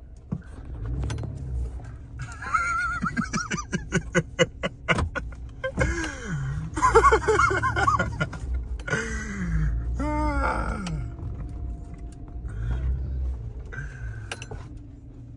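Laughter and wordless vocal exclaiming from people inside a vehicle's cabin, heard in several bouts over the low steady rumble of the idling engine.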